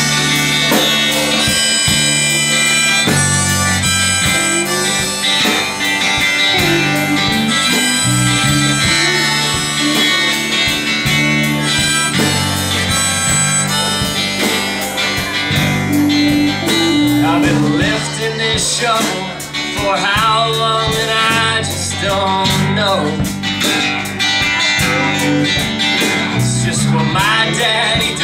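Live band playing a song's instrumental intro: strummed acoustic guitar, electric bass and drums keeping a steady beat, with a bending lead melody line over them from about halfway through.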